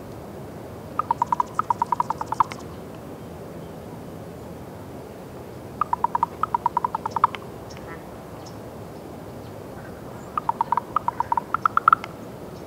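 Common ravens giving territorial calls: three bouts of rapid repeated croaks, each bout about a second and a half long, spaced a few seconds apart.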